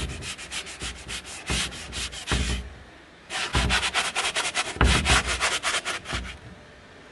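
Coarse sanding pad rubbed back and forth over a chalk-painted cupboard in quick, scratchy strokes, distressing the paint for an aged, worn look. The sanding pauses briefly about halfway, resumes, and stops about a second before the end.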